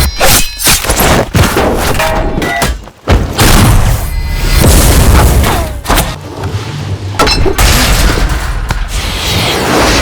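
A dense, loud montage of cinematic sound effects: booms and heavy thuds in quick succession, with music underneath. The run of impacts breaks off briefly about three seconds in, then resumes.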